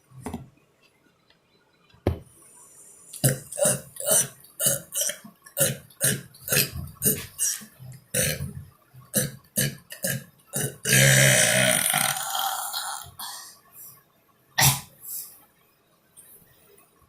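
A man burping over and over: a quick series of short burps about two a second, then one long loud burp about eleven seconds in, and a last short burp a few seconds later.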